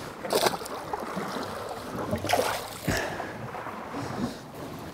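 Water slopping against a drifting boat's hull, with wind on the microphone. A short splash comes just after the start as a released snapper goes back into the sea, and there is a sharp knock near the three-second mark.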